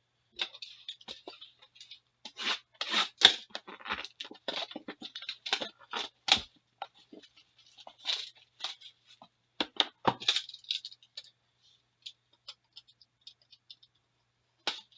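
A sealed box of trading cards being unwrapped and opened: irregular crinkling and tearing of plastic wrap and cardboard, in bursts, with the loudest rips about three seconds in and again around ten seconds.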